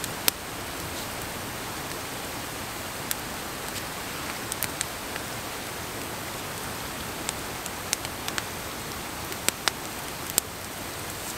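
A steady, even hiss like rain or rushing water, with about ten short, sharp clicks scattered irregularly through it, as from playing cards being handled and laid down.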